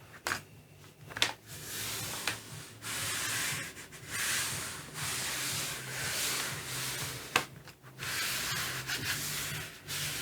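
Hands rubbing over a large sheet of watercolor paper laid on an inked gel printing plate, pressing it down to take the print. It is a dry hiss that comes in strokes of one to two seconds, with short pauses and a few small ticks in between.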